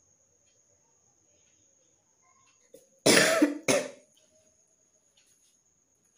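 A person coughing twice in quick succession about three seconds in, the first cough longer and louder than the second. It is a real cough from a tickly, itchy throat.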